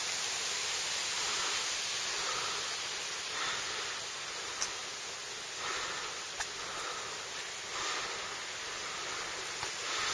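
Footsteps on a rough forest road, about one a second, over a steady rushing hiss, with a couple of sharp clicks.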